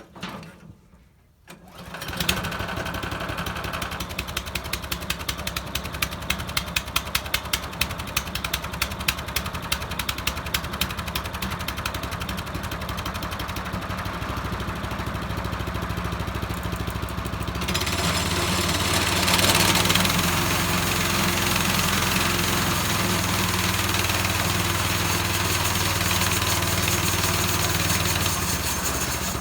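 Harbor Freight sawmill's small gasoline engine pull-started after sitting unused a long time; it catches about two seconds in and runs with an even pulsing beat, then runs louder and fuller from about seventeen seconds in.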